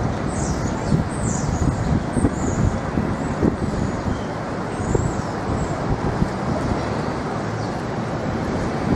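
Steady traffic noise of a busy city street.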